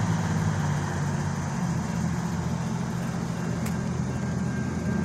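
Steady low rumble of an idling or approaching engine, with no clear rise or fall.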